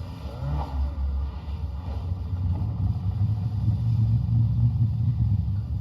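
A low, continuous rumble, mostly deep bass, that grows somewhat louder after the middle.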